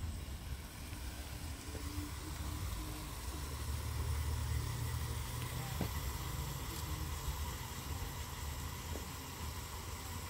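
Chopped onions frying in oil in a pan over a wood fire: a steady sizzle, with a low rumble underneath.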